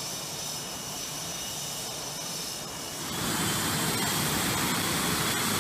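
F/A-18 jet engines running on the flight line: a steady rush with a high turbine whine, getting louder about three seconds in as a jet taxis past.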